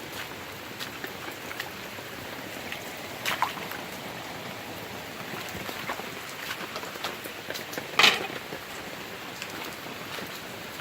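Steady rain falling, with scattered close drops pattering. A louder tap comes about three seconds in and a sharper, louder one about eight seconds in.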